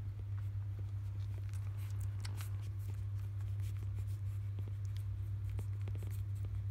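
Three-day-old Labrador Retriever puppies suckling at their mother, making scattered small wet clicks and smacks, over a steady low hum.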